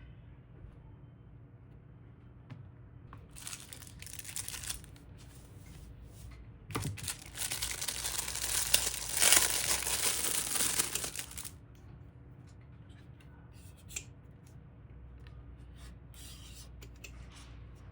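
Thin plastic or film being crinkled and torn. There is a short spell about three seconds in, a louder stretch of about five seconds in the middle, then a few brief crinkles.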